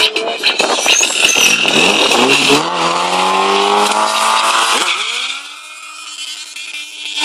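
Stunt motorcycle engine revving hard over a hiss of spinning, smoking rear tyre, its pitch climbing and then holding high; about five seconds in the revs drop back and the engine runs on quieter.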